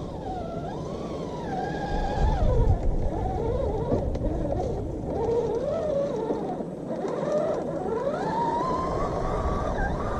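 Redcat Gen8 scale RC crawler's electric motor and gearbox whining, the pitch rising and falling as the throttle is worked, over a low rumble.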